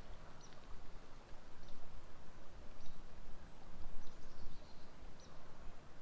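A bird giving short high chirps, one about every second, over a low, uneven rumble.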